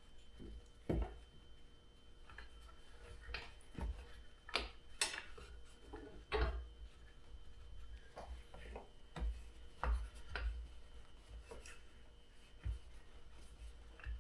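Hands pressing small rubber protectors into holes in an ATV's plastic bodywork: irregular clicks, light knocks and rubbing.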